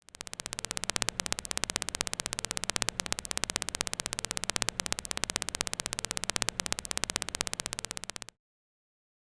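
Home-built intruder alarm circuit sounding as a fast, even electronic clicking, about ten clicks a second over a low hum. It cuts off suddenly near the end.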